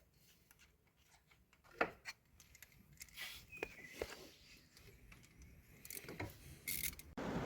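Scattered light clicks, knocks and scrapes of hand tools and parts being handled during glow-plug work on a car engine, one sharper click about two seconds in. Near the end a steady rushing noise starts abruptly.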